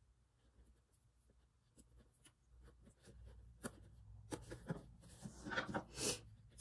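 Faint rustling and light ticks of embroidery floss being pulled through cotton fabric and knotted off, with the fabric brushing against the wooden hoop. It is nearly quiet at first, and the rustling grows busier past the halfway point.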